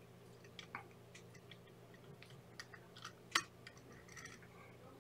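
Faint scattered clicks and rustles of a whip finish tool and thread being worked on a fly clamped in a tying vise, with one sharper click about three and a half seconds in, over a steady low hum.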